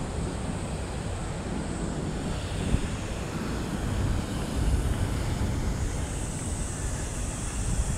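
Outdoor city ambience: a steady rumble of traffic with wind buffeting the microphone.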